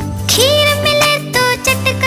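Upbeat children's song music with a steady beat and bass under a bright melody; about half a second in, a note slides up and holds for most of a second.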